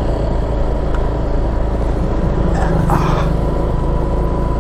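A Honda scooter running at low speed, its engine noise mixed with a steady low rumble of wind and road noise on the microphone.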